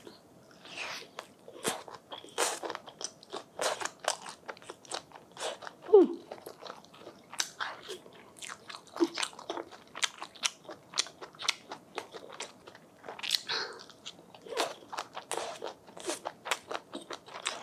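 Close-miked eating of rolled rice paper (bánh tráng cuộn) with butter sauce: a steady run of irregular biting and chewing crunches, several a second.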